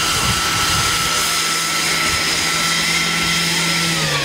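Radio-controlled scale model of a Eurocopter EC135 helicopter, its drive and rotor making a steady high whine while it hovers low and sets down. Near the end the whine starts to drop in pitch as it spools down after landing.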